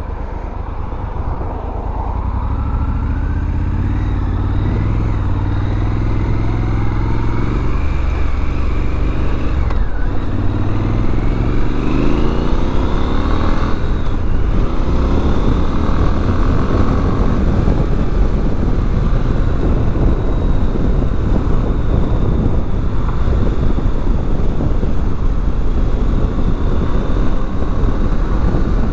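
Triumph Scrambler 1200 XC's 1200 cc parallel-twin pulling away and accelerating. The engine note rises, dips about ten seconds in and rises again as it goes up through the gears, then settles into steady cruising under wind noise.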